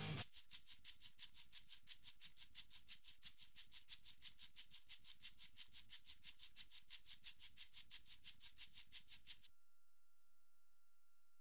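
Faint, rhythmic hissing ticks, about six a second and shaker-like, are artefacts left in a vocal-isolated rock track where the singing stops. They cut off about nine and a half seconds in, leaving near silence with a faint steady tone.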